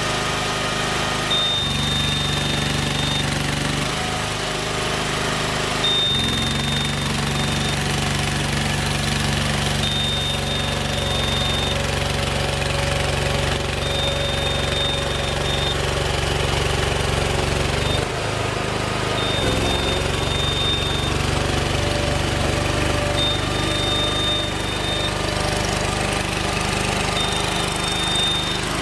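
Engine of a tracked crawler car carrier running under load as it drives with a wrecked car on board, its pitch stepping up and down a few times. A high steady tone sounds in two-second stretches about every four seconds.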